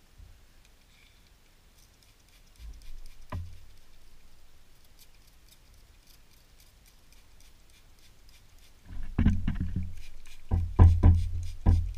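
Trigger spray bottle squirted in a quick run of short bursts onto a wooden board, wetting it before a Lichtenberg burn; a couple of soft knocks come a few seconds earlier.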